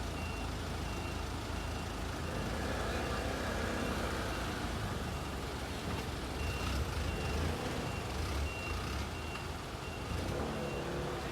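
Fire engine reversing: its back-up alarm beeps about twice a second over the low running of the truck's engine. The beeping breaks off about a second in and starts again past the middle.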